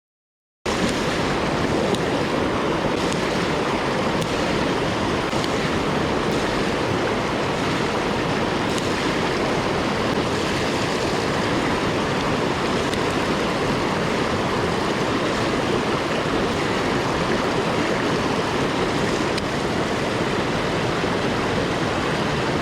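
Mountain stream rushing, a steady noise of flowing water. It starts abruptly after a moment of dead silence.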